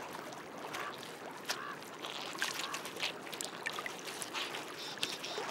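A beaver working on top of its lodge with a load of pond mud and sticks: faint wet crackling and scattered small clicks of twigs and mud, over a soft trickle of water.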